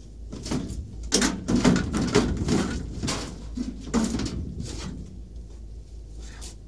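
A sheet-metal electronics module being slid out of a UPS cabinet: a run of metal scrapes, rattles and clunks, busiest in the first four seconds and sparser after.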